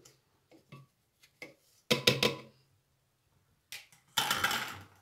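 Kitchen handling noises as a plastic blender lid comes off a glass jug and is put down: a few light clicks, a short clatter about two seconds in and a longer clatter near the end.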